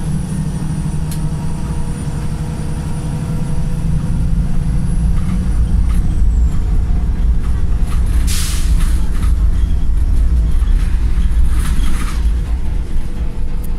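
Wright Pulsar single-decker bus's diesel engine running in limp mode, its steady note dropping about five and a half seconds in while a faint high whine fades out. Two short hisses of air follow, at about eight seconds and near twelve seconds: the bus's air brake 'sneeze'.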